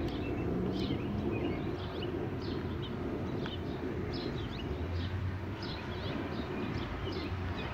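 Outdoor ambience: small birds chirping repeatedly over a steady low background rumble.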